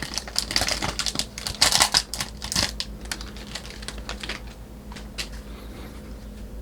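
A stack of baseball trading cards being flicked through by hand: quick papery clicks of card edges snapping past each other, dense for the first three seconds, then sparser and fainter.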